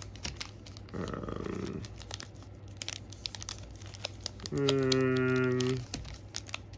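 Sealed foil trading-card packs crinkling and crackling as a handful of them is handled and shuffled. A little past halfway, a man's voice holds one steady hummed note for just over a second.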